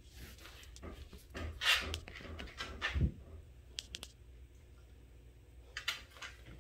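Basset hound puppy sniffing and moving about on a hard floor: a run of short rustling snuffles and scuffs, a soft low bump about three seconds in, then a few light clicks near the end.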